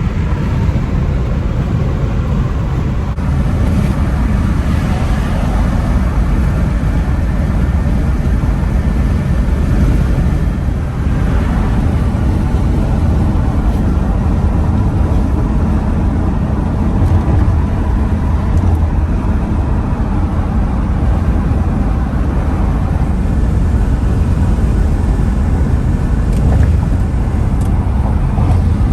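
Steady low rumble of a moving car's engine and road noise, with no sudden events.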